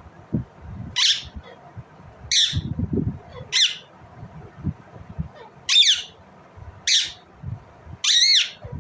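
Indian ringneck parakeet giving six short, shrill squawking calls about a second apart, some sweeping downward in pitch.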